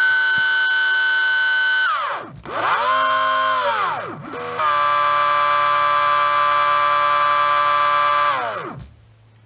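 Surpass Rocket V6 17.5T brushless motor whining as a Hobbywing Tunalyzer runs it through a motor test with its timing advanced. It holds a steady high whine, winds down about two seconds in, spins up and down briefly, then holds a steady whine at a new pitch from about five seconds in before winding down and stopping near the end.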